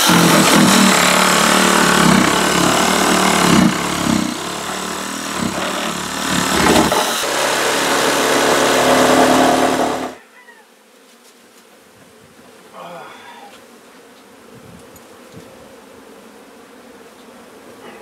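Loud, dense buzzing of a mass of honey bees close to the microphone as the hive is worked. It cuts off abruptly about ten seconds in, and a much fainter background follows.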